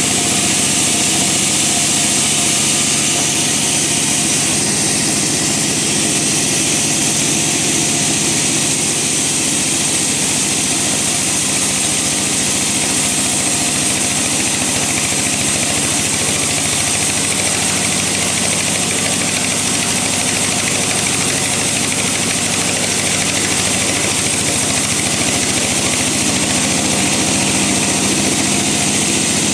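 Bandsaw running and cutting through a log: a constant hiss from the blade in the wood over a steady low machine hum.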